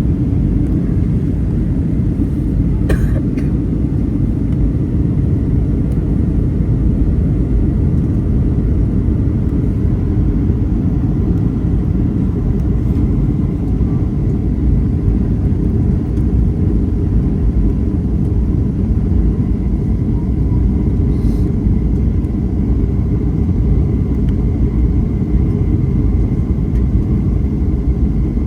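Steady low rumble of a Boeing 737-800/900 in flight on approach: its CFM56-7B engines and the airflow heard from inside the cabin. A brief click comes about three seconds in.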